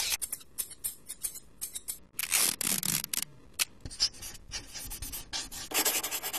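A person's mouth sound effects imitating a sci-fi weapon: an irregular run of short hissing puffs and clicks, then a longer breathy hiss near the end.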